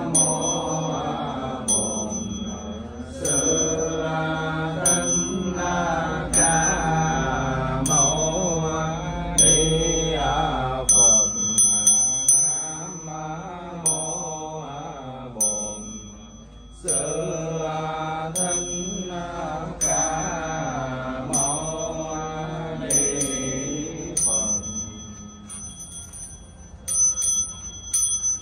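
Chanting voice over musical accompaniment in the style of Buddhist chant music, with a small bell struck about once a second.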